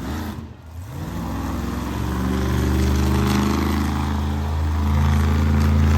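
Monster truck engine revving hard: the engine note climbs from about a second in and is held high, dipping slightly midway, then drops off suddenly just after the end.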